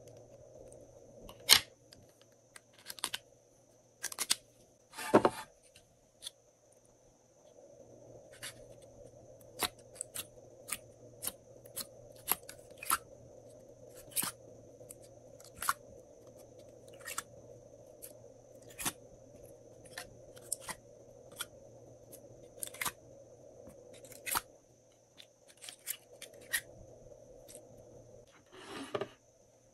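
Scissors snipping through lipstick sticks in a few sharp cuts, followed by a long run of light clicks and taps, roughly one a second.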